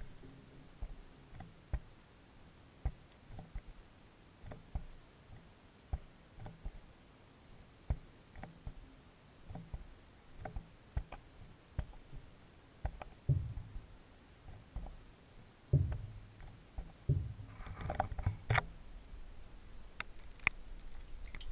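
Muffled, irregular clicks and low knocks picked up by a camera submerged in a fish tank. From about two-thirds of the way in, the knocks grow into louder thumps, and near the end there is a rush of water noise as the camera is moved through the water.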